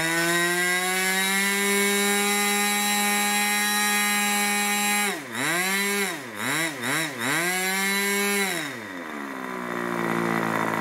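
Irvine 40 MkII Schnuerle-ported ABC two-stroke glow engine turning a 10x6 propeller, running flat out at about 12,000–13,000 RPM with a steady high-pitched whine. About five seconds in the throttle is snapped back and reopened four times in quick succession, each time dropping and picking straight back up to top speed. Near the end it is throttled down, the pitch falling towards idle.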